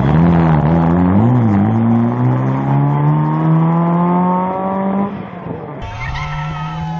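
Small classic rally car's engine revving out of a hairpin. The pitch wavers at first, then climbs steadily under hard acceleration until the revs cut off about five seconds in. After a cut near the end, a car engine is heard again at a steady pitch.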